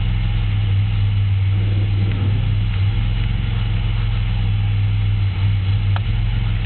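GM 3800 V6 engine running with a steady knock, a knock that started as a loud tick; it turned out to be a spun rod bearing.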